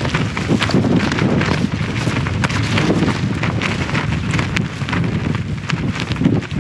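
Strong gusty wind buffeting the microphone, with rapid crackling flutter of tent fabric being blown about as the tent is struck.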